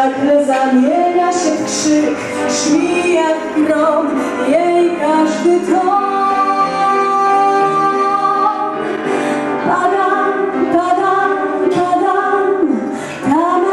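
Music: a woman singing a song with instrumental accompaniment, holding one long note about halfway through.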